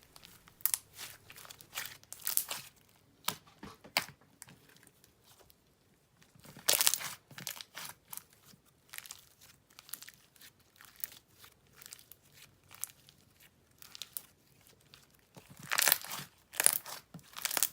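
Thick, stretchy jelly slime with red foam beads being stretched and squished by hand, giving sticky crackles and small pops. There are louder runs of crackling about seven seconds in and again near the end.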